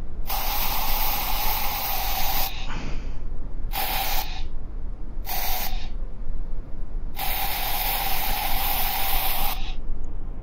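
Hissing, spray-like sound effect of the Oculus Medium paint tool while it is being applied, in four bursts: two long ones of about two seconds and two short ones, each with a steady tone under the hiss.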